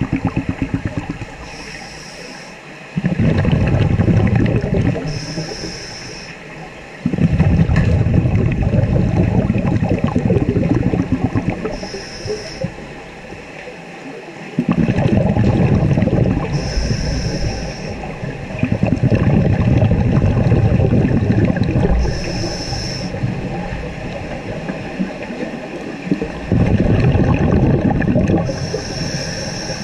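Scuba regulator breathing underwater: six breaths, each a short hiss of inhaled air through the demand valve followed by a longer, louder rush of exhaled bubbles.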